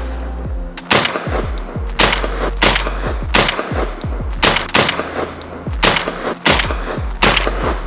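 A rapid series of gunshots, about a dozen sharp cracks, one every half second to second, each with a short echo. A steady low bass from background music runs underneath.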